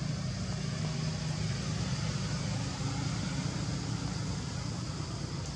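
A steady low motor drone runs under a constant high hiss, with no sudden events.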